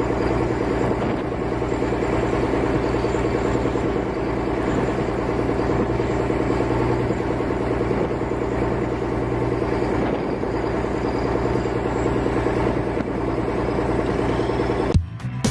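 A heavy construction machine's engine running steadily, which cuts off abruptly near the end.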